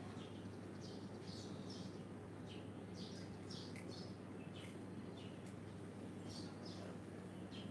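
Small birds chirping, many short high calls scattered throughout, over a steady low background hum.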